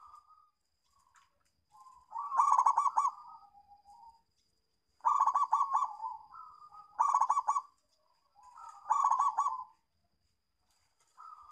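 Zebra dove (perkutut) cooing: four loud bursts of rapid stuttering coos, each trailing off into a softer, lower note, with quieter single coos in between.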